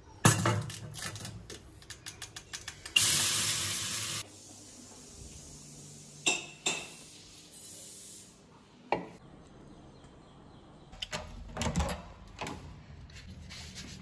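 A steel frying pan and metal spatula set down clattering in a stainless steel sink, then a tap runs for about a second. A few scattered clinks and knocks follow.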